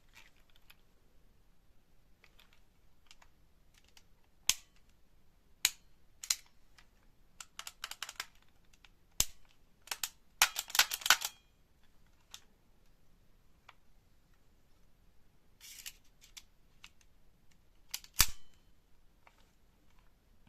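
Crosman Copperhead Auto Air II air pistol being handled: a string of sharp mechanical clicks and snaps, with short runs of fast clicking, and two louder snaps near 9 seconds and 18 seconds in.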